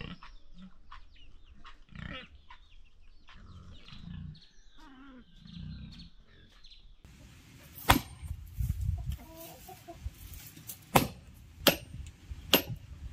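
Chickens clucking, in short wavering calls. About seven seconds in the sound changes, and four sharp knocks follow over the last five seconds.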